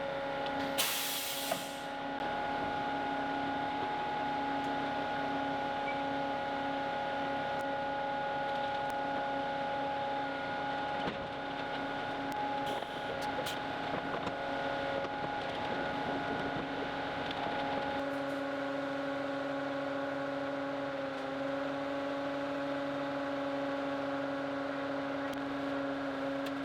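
Concrete truck's diesel engine running steadily with an even hum. There is a brief hiss about a second in.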